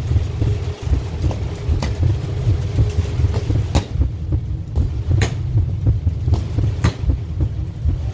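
Steady low rumble of wind buffeting the microphone, with a handful of sharp knocks scattered through, the loudest about a second and a half apart in the middle.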